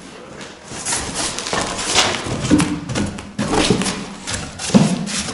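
Cardboard packaging of a fireplace door being handled and opened: irregular rustling with scattered clicks and knocks.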